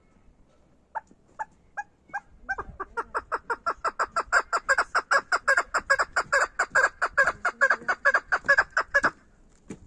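Female chukar partridge calling. A few spaced notes about a second in speed up into a fast, even run of repeated chuk notes, about six a second, which stops abruptly near the end.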